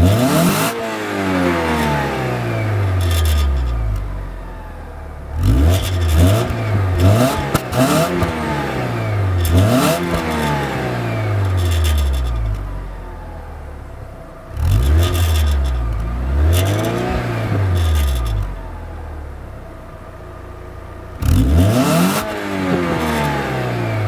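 Alfa Romeo GTV 2.0 Twin Spark's 16-valve four-cylinder engine revved while standing still, heard at the tailpipe. It gives a series of throttle blips, each climbing sharply and dropping back more slowly, with short spells of idle in between.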